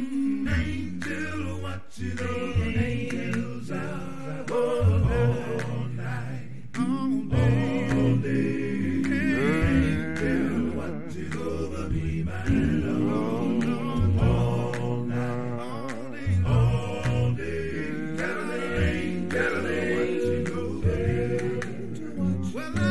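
Several voices singing a hymn together a cappella, with no instruments.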